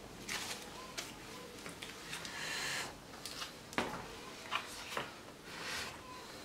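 Soft rustles and a few light clicks and taps from a leather sport sandal being handled and shifted about on the floor.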